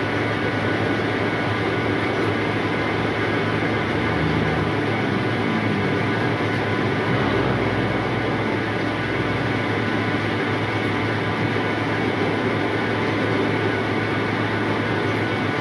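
Rice seed sorting machine running: a steady mechanical drone with a constant hum of tones.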